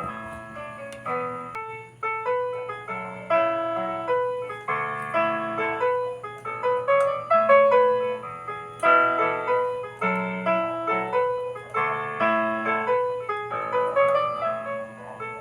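Piano music: a flowing melody over lower chord notes, each note struck and then fading.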